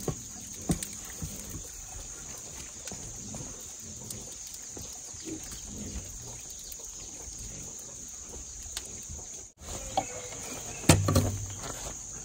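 Charcoal embers in a brick clay pit oven ticking and crackling with scattered faint clicks over a steady high-pitched hiss. A louder knock with a low thud comes about eleven seconds in.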